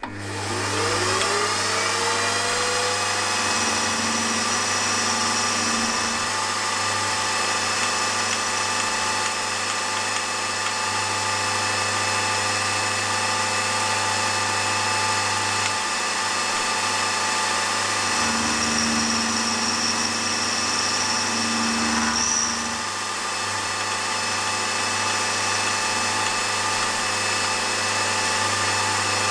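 Milling machine spindle spinning up with a rising whine, then running steadily. An end mill cuts the edges of a model-engine crankshaft web, and the cutting note comes and goes as it takes each pass.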